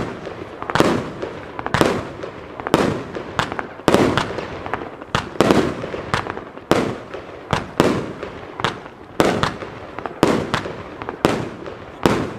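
Original Fireworks 'Brutal Box' compound fireworks cake firing a steady series of shots and bursts, sharp bangs about three every two seconds, with smaller crackles between them.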